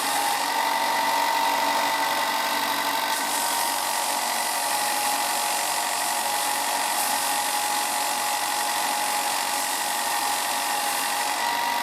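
Ryobi 4 in x 36 in benchtop belt and disc sander running steadily with a whine, as a wood disc is sanded on its flat belt to take off rough edges. A brighter hiss of sanding sounds for the first three seconds or so and again near the end.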